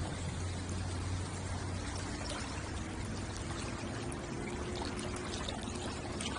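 Water lapping and trickling at the shoreline, a steady wash with small scattered splashes and drips. A faint steady hum sits under it from about halfway through.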